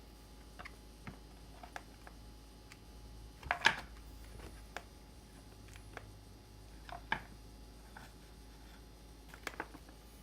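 Scattered light clicks and knocks of small chainsaw parts and hand tools being handled, with a louder cluster of clicks about three and a half seconds in.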